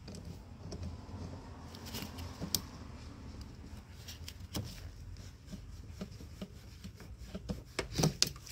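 A hand tool working a hose clamp off a heater hose: scattered light clicks, with a few sharper ones near the end.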